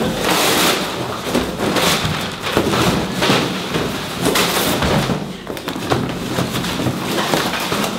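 A large cardboard box being handled roughly: its flaps and sides scrape, rustle and bang, with repeated thumps.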